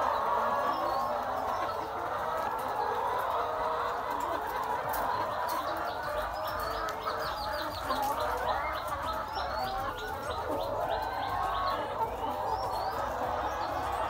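A large flock of caged laying hens clucking and calling all at once, a dense, continuous din of overlapping calls.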